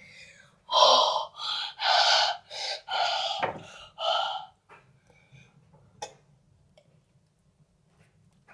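A boy gasping and panting hard from the shock of sitting in cold bath water: a run of five or six loud, sharp gasps over the first half.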